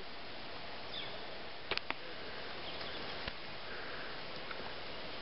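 Steady outdoor hiss with a few short sharp snaps, two close together a little under two seconds in and one more about a second later: twigs and brush snapping as someone pushes through dense undergrowth.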